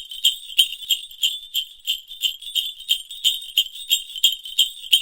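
Sleigh bells sound effect jingling in a steady, even rhythm, about three shakes a second.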